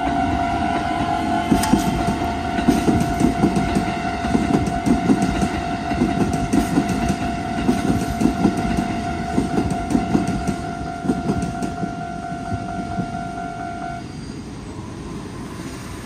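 Japanese level-crossing warning bell ringing steadily while an electric commuter train passes over the crossing, its wheels clattering rhythmically over the rail joints. The bell stops about two seconds before the end, as the crossing clears and the barriers begin to rise.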